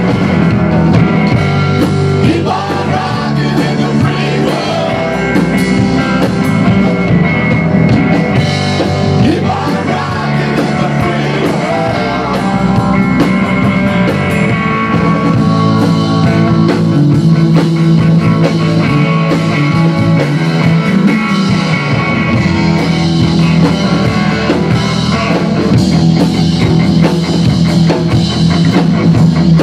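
Rock band playing live: electric bass, electric guitar and a Tama drum kit together.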